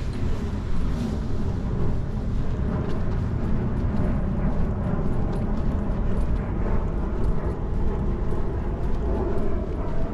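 Steady outdoor ambience at a shopping plaza: a continuous low rumble with faint light ticks mixed in.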